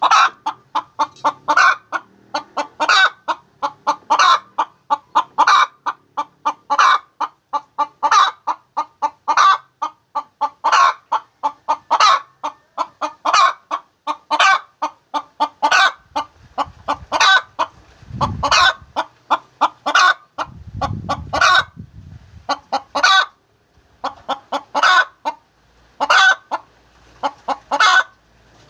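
Hen cackling its egg song: runs of quick clucks, each run ending in a longer, louder squawk, repeated about every second and a half.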